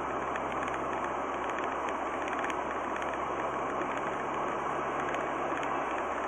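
Steady engine and road noise of a car cruising at about 60 km/h, heard from inside the cabin.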